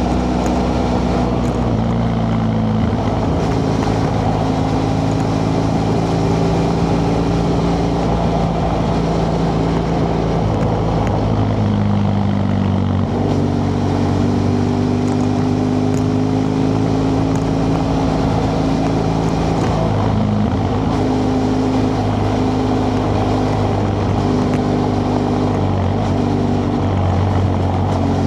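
BMW F 800 GS parallel-twin engine running through its stock exhaust while riding, a steady note whose pitch steps up and down a few times with throttle and gear changes.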